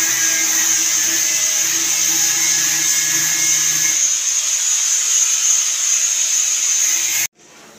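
A loud, steady mechanical whir and hiss with a faint hum under it, cutting off suddenly near the end.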